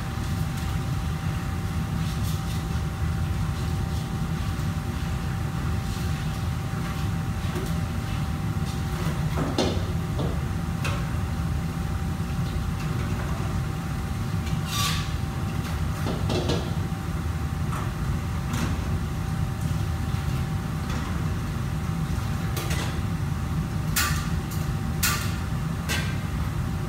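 Commercial kitchen background noise: a steady low machine drone with a faint thin whine, broken by occasional short clinks and clatters of utensils and cookware.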